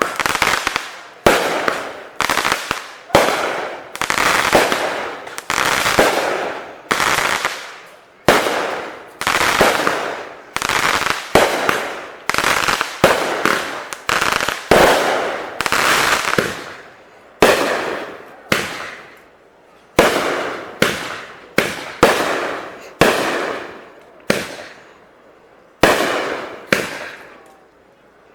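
Fireworks going off one after another, about one sharp bang a second, each dying away over most of a second.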